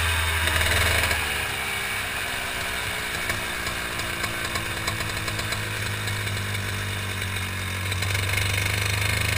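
Two-stroke kart engine heard from onboard the kart, with wind rush on the microphone; it drops off about a second in and runs lower and steadier as the kart slows, then picks up again near the end.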